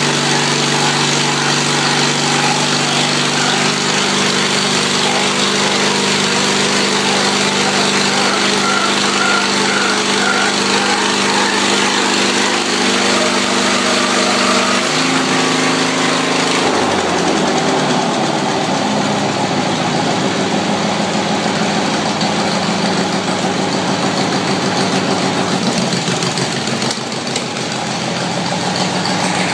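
Deutz-Allis 16 HP hydrostatic garden tractor engine running steadily at high speed. About halfway through, its note drops and it runs slower with an uneven chugging beat.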